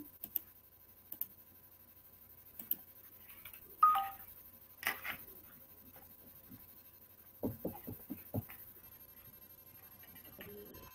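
Faint scattered clicks and knocks, with a short falling two-note tone about four seconds in.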